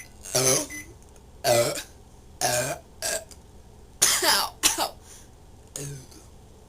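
A woman burping repeatedly, about seven short burps in quick succession with brief gaps, the last one fainter: gas brought up after drinking a can of Coca-Cola too fast.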